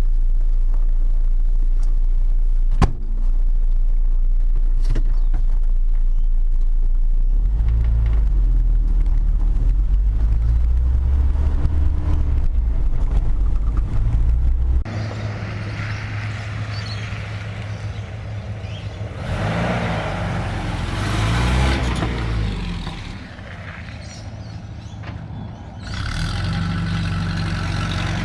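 1984 Toyota Hilux on a test drive after carburettor adjustment. Its engine runs as a low drone, with a single knock about three seconds in, then rises in pitch as it accelerates. About halfway through it drops in level, and a hiss of road and wind noise comes in while the engine revs rise and fall.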